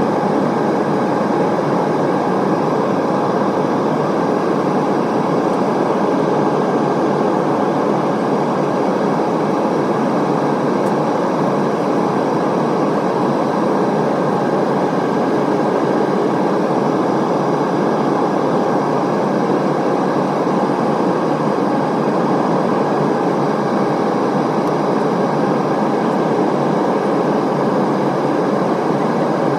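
Steady cabin noise inside an Airbus A320neo airliner in flight: a constant rush of airflow and engine noise with a few faint steady tones running through it.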